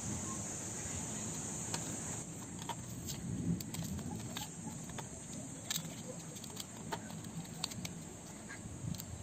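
Faint crinkling and scattered small clicks of a coin-cell blister pack being torn open by hand: the card backing ripped and peeled and the plastic bubble pressed to push the battery out.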